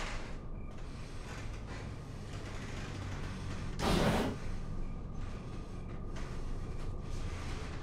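Low, steady rumbling drone of a horror film's suspense soundtrack, with one brief loud rushing burst about four seconds in.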